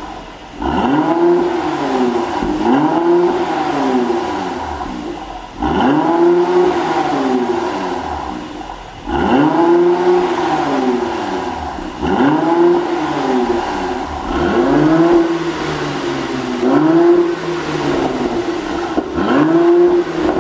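Mercedes-AMG GLC 43's twin-turbo V6 revved in about a dozen quick blips, each rising then falling in pitch, in three groups with short lulls between. The engine has an exhaust pop tune meant to give pops and crackles as the revs drop.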